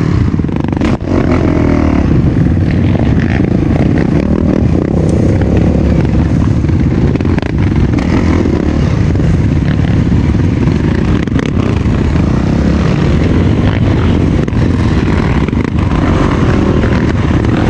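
Off-road motorcycle engine running steadily while riding a trail, a loud, even rumble with a few sharp knocks.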